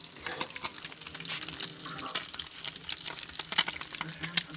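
Fish frying in hot oil, with dense, irregular crackling and popping.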